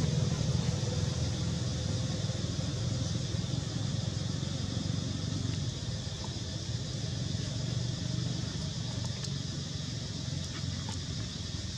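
Steady low background rumble, with a faint steady high tone above it and a few faint ticks.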